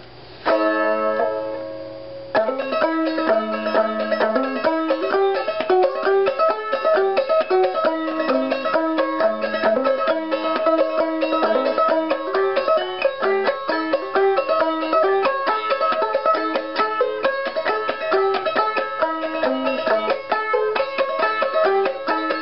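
Small banjo ukulele. One chord is strummed about half a second in and rings for a couple of seconds, then a steady plucked tune of quick, bright notes runs on. The instrument is being tried out after a nut and broken-string repair, and it seems pretty good.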